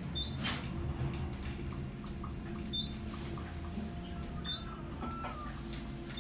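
Urban traction elevator car travelling down, a steady low ride hum inside the cab. A knock about half a second in and a few short high beeps sound over it.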